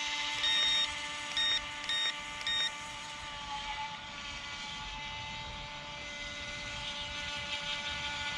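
Small H120 RC boat's electric motor whining steadily out on the water, a thin, high, even tone that fades somewhat after a few seconds. Four high electronic beeps sound in the first three seconds, one longer then three short.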